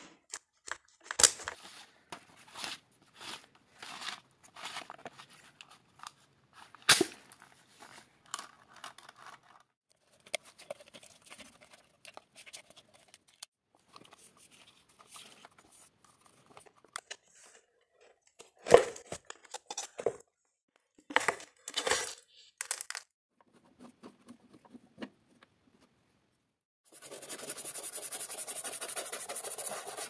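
Hands handling and taking apart the plastic cord-reel assembly of a 1970 vacuum cleaner: scattered clicks, knocks and scrapes of plastic and wire, the sharpest about a second in, about seven seconds in and just before twenty. Near the end a brush starts scrubbing the dirty, soapy housing, a steady rapid scratching.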